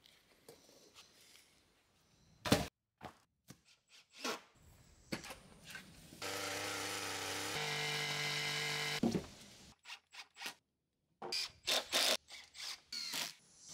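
Scattered knocks and scrapes of hand work, then a power drill runs steadily for about three seconds, its pitch stepping once midway. A cluster of sharp knocks follows near the end.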